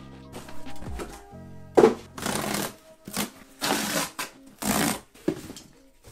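Corrugated cardboard shipping box being torn apart by hand: several short, loud ripping and crumpling bursts in the second half, over background music.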